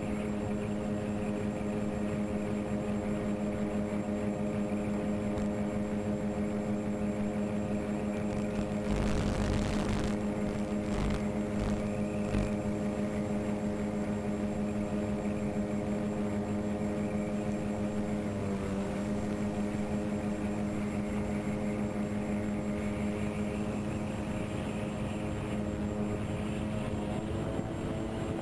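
Twinstar RC plane's twin electric motors and propellers running at cruise: a steady hum with a whine above it. Wind rushes over the microphone about nine seconds in and again around eleven to twelve seconds; the pitch dips briefly past the middle and rises a little near the end.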